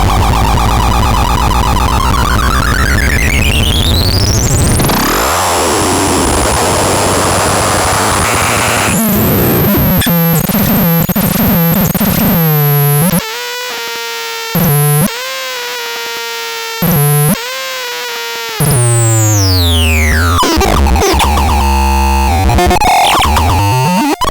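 Electronic synthesizer making harsh, buzzy sounds. A pitch sweep rises over the first few seconds into a stretch of noise, then come choppy stepped tones. A held tone broken twice by short dropouts follows, and a falling sweep comes near the end.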